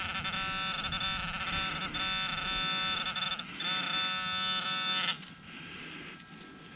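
Handheld metal-detecting pinpointer probe buzzing steadily as it is held in the dig hole, signalling metal close to its tip. The buzz falters briefly about two and a half seconds in and stops about five seconds in.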